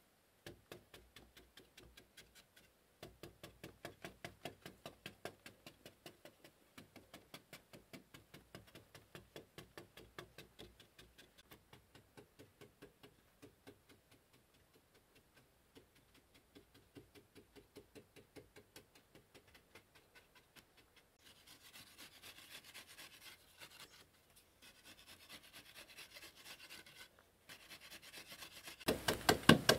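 A hand tool rubbing and scraping against a packed mud wall in quick, even strokes, about four or five a second. Near the end the strokes turn much louder and sharper.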